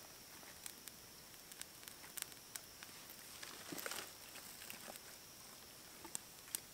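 Small campfire being lit from kindling: faint scattered crackles and snaps of twigs catching and being laid on, with a brief cluster of crackling just before four seconds in and a couple of sharper snaps near the end.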